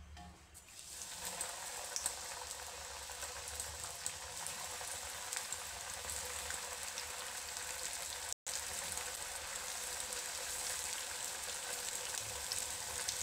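A chicken piece coated in flour and oats deep-frying in hot oil in a kadai, with a steady crackling sizzle that builds up about a second in. The sizzle breaks off for an instant past the middle.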